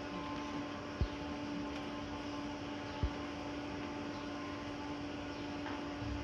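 Steady electrical hum, with two short low thumps about a second in and about three seconds in.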